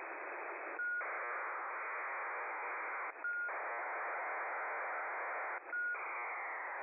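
HFDL (High Frequency Data Link) digital data signal on 15025 kHz, heard through a shortwave receiver in sideband mode as a steady hissing burble. It drops out briefly three times, each time picking up again with a short tone as a new data burst begins.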